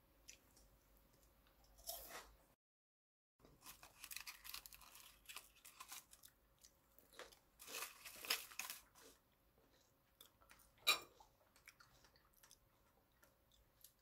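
Quiet crinkling and crunching of foil-wrapped Gavottes crêpe dentelle biscuits being handled and unwrapped. It comes in several bursts, with one sharp click about eleven seconds in.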